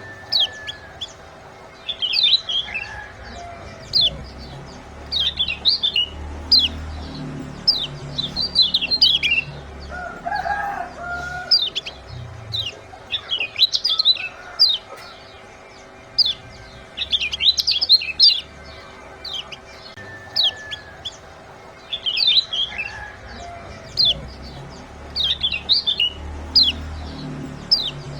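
Kecial kuning (a white-eye) giving sharp, high 'ciak' chirp calls in quick clusters, repeated every second or two. It is a lure call track meant to set other birds calling.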